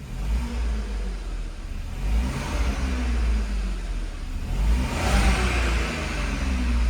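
VW Polo 1.0 TSI three-cylinder turbo engine revving, its pitch rising and falling a few times. Its stainless-steel exhaust cutout valve (diffuser) is closed, giving the quieter, near-stock exhaust note.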